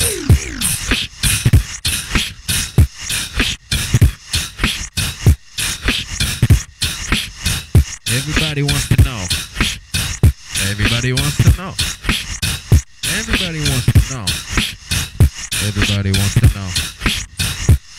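Human beatboxing: fast, dense mouth-percussion clicks and snares. From about halfway in, wavering vocal calls that imitate a crow's caw join them and repeat every couple of seconds.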